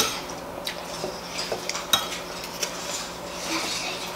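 Tableware clinking as shrimp are eaten: several sharp clicks of a spoon and plates on ceramic, the loudest about two seconds in, with softer rustling as shells are peeled by hand near the end.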